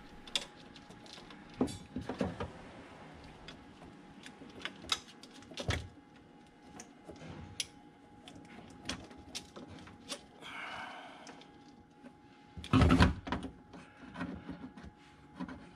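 Hood latch parts of a car, metal and plastic, being handled and fitted by hand: scattered clicks and clinks, with one louder clatter near the end. A faint steady hum sits underneath.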